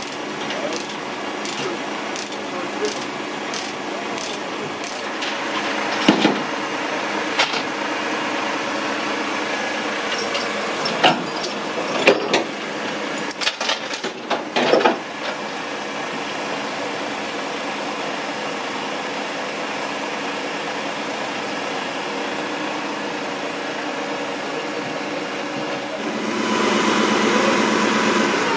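Truck engine running steadily, with sharp metal clanks and rattles of lashing chains and hooks being unhooked. About 26 s in, the engine and the hydraulics of the truck-mounted Fassi loader crane get louder as the crane starts to lift.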